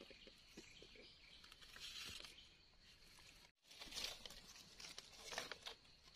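Faint rustling and crinkling of dry leaf litter, with small scrapes and clicks, as hands clean and pick wild mushrooms. A brief total dropout falls just past halfway.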